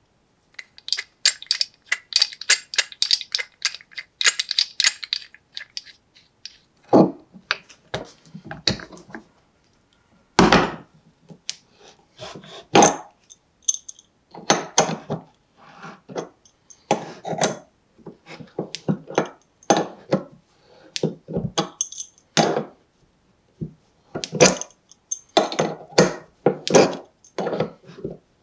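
Metal clicks and clanks of an antique Whitman & Barnes monkey wrench being handled and worked by hand. A fast run of light clicks fills the first few seconds, then come irregular knocks and clunks of the steel parts, a few of them loud.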